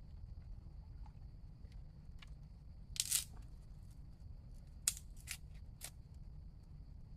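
A few short, sharp snaps or cuts over a steady high hum and a low rumble. The loudest comes about three seconds in, and three quicker ones follow about two seconds later.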